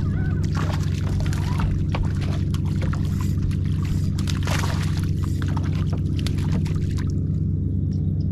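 A motor's steady low hum, with water splashing and pouring over it until it stops about a second before the end.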